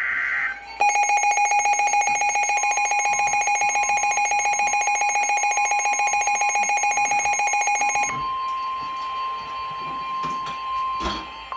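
End of a NOAA Weather Radio alert's SAME data burst, then a weather radio receiver's alarm sounding a loud, rapidly pulsing beep for about seven seconds. Under it the broadcast's steady 1050 Hz warning alarm tone comes in, and it continues alone for about three seconds after the beeping stops, before the severe thunderstorm warning message.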